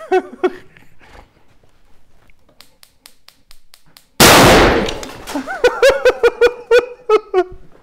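A single loud propane–air explosion in a capped clear tube about four seconds in: one sharp bang that fades over about a second. The charge was two short ticks of propane, a near-ideal air–fuel mix. It is followed by a run of short, repeated laughs.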